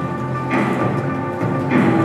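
Music playing, with held tones and a recurring beat about once a second.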